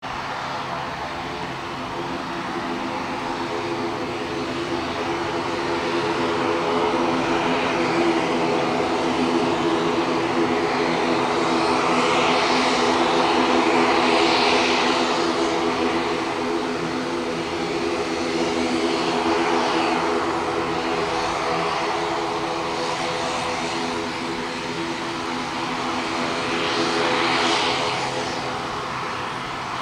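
ATR 72-600 twin turboprop taxiing, its propellers and engines giving a steady droning hum made of several low notes, with a rushing sound that swells and eases a few times, loudest around the middle.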